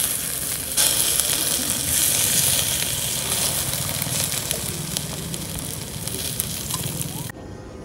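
Water poured from a plastic bottle onto the glowing embers of a small wood cooking fire, hissing loudly as it puts the fire out. The hiss swells about a second in and stops abruptly near the end.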